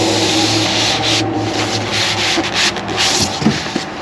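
Cardboard and packing material rustling and scraping as a tightly packed parts box is pulled open by hand, coming and going in short rushes with brief pauses.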